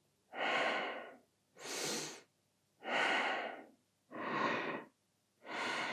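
A woman breathing audibly in and out, in quick paced yoga breaths through the cat-cow spine movement: five breaths, about one a second.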